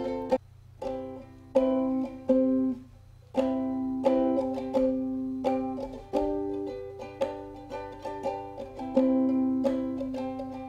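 Ukulele strummed without singing: a few separate chords with short gaps, then a steady strumming pattern of several strums a second from about four seconds in.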